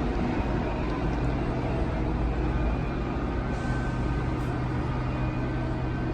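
Steady low rumble of motor-vehicle noise with a constant low hum.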